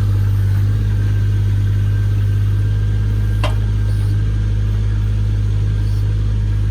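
Engine of a powered earth auger running steadily at a constant speed while it bores a fence post hole.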